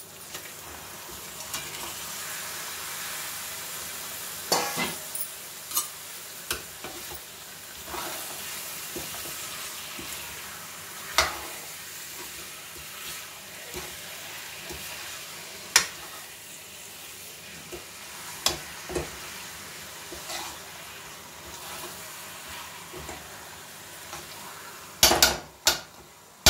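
Raw chicken pieces sizzling in hot onion-tomato masala in a steel kadhai, a steady sizzle, while a steel spoon stirs them, clinking and scraping against the pan now and then. A quick run of sharp knocks of the spoon on the pan comes near the end.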